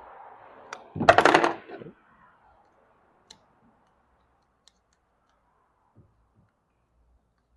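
Small screws and a hand tool clattering on a hard work surface for about a second, then a few faint clicks, as the 2.5 mm screws are taken out of the XAG Revospray pump's back plate.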